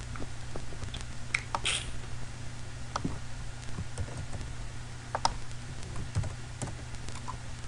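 Irregular clicks of a computer keyboard and mouse, a dozen or so separate taps while a link is copied and pasted into a browser.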